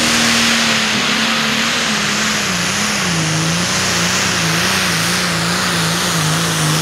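International Harvester limited pro stock pulling tractor's turbocharged diesel engine running flat out under the weight-transfer sled. Its pitch wavers and slowly sags lower as the sled's load pulls the engine down.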